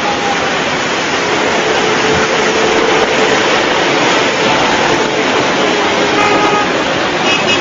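Steady, loud rush of heavy rain, with a few faint held tones over it.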